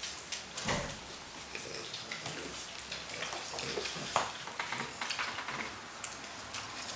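French Bulldog puppies and an adult French Bulldog moving about on a hardwood floor: scattered light clicks of claws and scuffs of paws, with a louder bump just under a second in.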